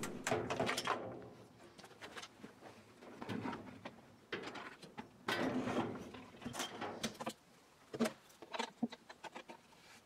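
Plastic washing machine tub and its parts being handled: scattered knocks, clicks and scrapes, with a louder stretch of scraping about five seconds in.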